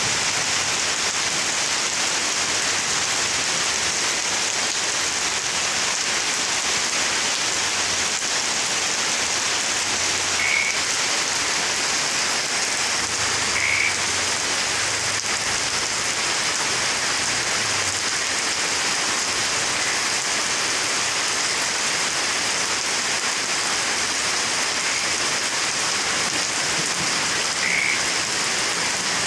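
Heavy rain falling steadily on a surface, a constant dense hiss. Three short high blips stand out briefly above it.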